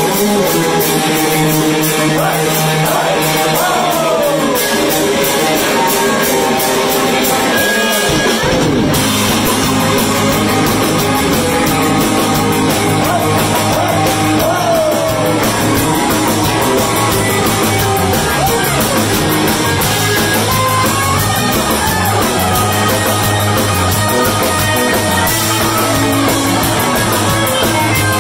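Blues-rock band playing live: a lead line on electric guitar with string bends over a drum kit, with a deeper bass part coming in about eight seconds in.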